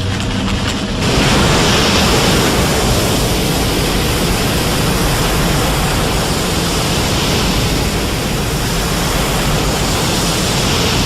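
Godzilla's atomic breath film sound effect: a brief lower hum that swells about a second in to a loud, steady rushing hiss over a deep rumble.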